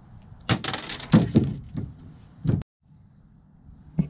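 Close handling noise: a run of sharp knocks and crackles as the camera is grabbed and moved about. It stops abruptly about two and a half seconds in, leaving a faint low hum, and another knock comes near the end.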